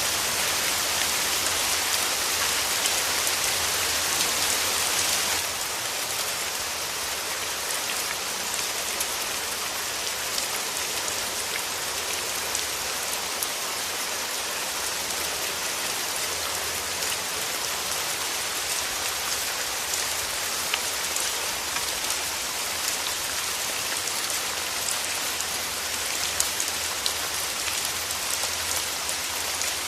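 Steady rain falling, with individual drops ticking through it; it drops a little in level about five seconds in and then holds steady.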